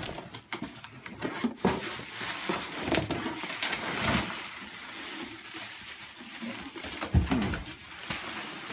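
Rustling and handling noises with scattered clicks and knocks, and a louder knock about seven seconds in.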